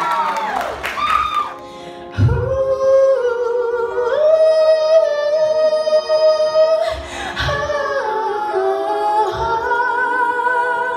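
A woman singing a J-pop anime song cover live into a handheld microphone over backing music. The music dips briefly about two seconds in, then a new phrase of long held notes begins.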